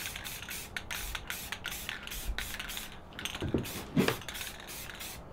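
Aerosol spray can of Rust-Oleum Painter's Touch gloss paint hissing in a rapid series of short bursts as a coat of paint is sprayed over a fiberglass canoe's gelcoat repair.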